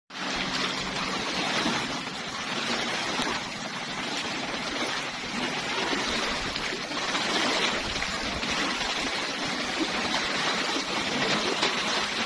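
Steady rushing noise of wind and sea at the shoreline under a storm, with gusts buffeting the microphone.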